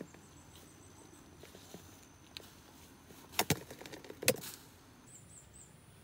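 Sharp clicks and knocks from handling a clear plastic insect box, in two clusters about three and a half seconds in and again a second later. Under them runs a faint, high, steady insect trill, and a few quick high chirps come near the end.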